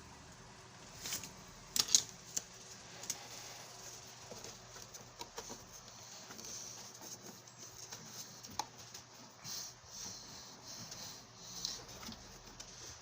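Light clicks, taps and rustling as the plastic parts of a vacuum cleaner are handled and fitted by hand, with a few sharper clicks about two seconds in.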